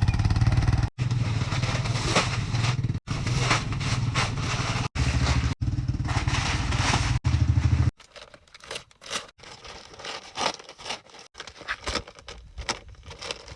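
A vehicle engine running steadily through a series of short cut clips, ending about eight seconds in. After it come quieter, irregular scraping and crackling sounds.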